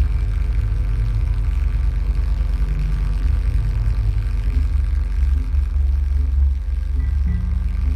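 Live noise music played loud through a PA: a dense, deep rumble that throbs unevenly, with faint steady tones above it.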